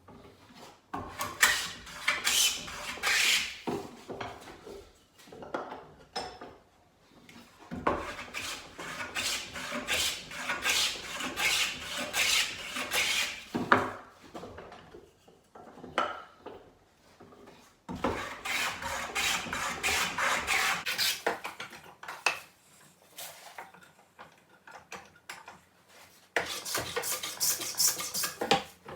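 No. 5½ bench plane shaving the face of wooden boards, pushed in runs of quick strokes with short pauses between the runs.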